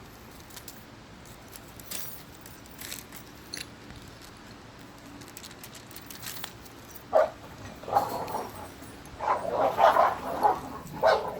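Dog barking repeatedly, starting about seven seconds in with a few single barks and turning into a rapid run of barks near the end. Before that only faint taps and rustles.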